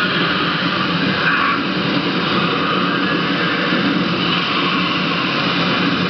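Torrent of water from a staged flood effect rushing over rocks: a steady, loud rushing noise without a break.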